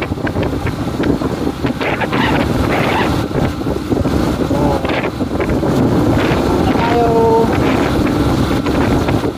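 Wind rushing over the microphone of a moving motorcycle, with the motorcycle's engine and road noise underneath.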